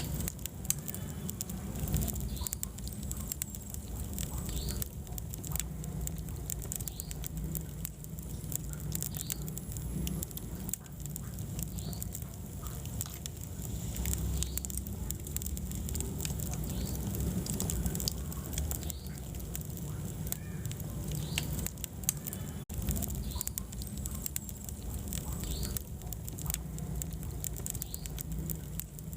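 Wood fire in a fireplace crackling, with many irregular sharp pops over a steady low rumble of the flames.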